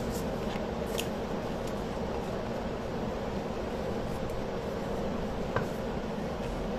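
Steady mechanical room hum with a low drone, and a few faint light taps, one about a second in and another about five and a half seconds in.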